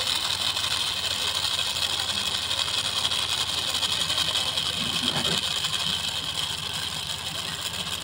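Small brushed DC toy motor running steadily on battery power, a continuous high whirring whine that eases slightly near the end.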